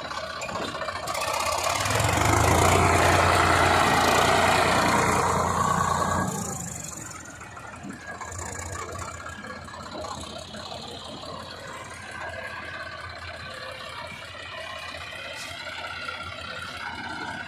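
Diesel engine of a JCB 3DX backhoe loader working hard and loud for about five seconds, then dropping back to a quieter, steady run.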